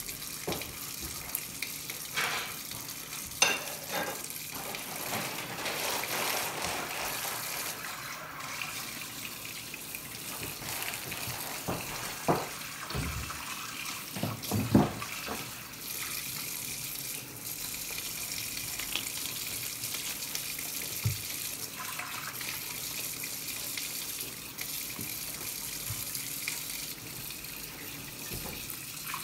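Kitchen tap running steadily into a sink while a dish is scrubbed under the stream. Occasional sharp clinks and knocks as dishes are handled, a few of them louder than the running water.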